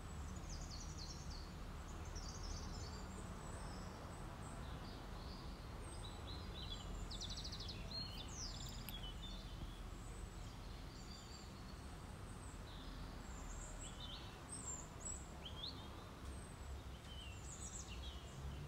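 Faint, scattered chirps of small birds, short high calls throughout, over a low steady background hum.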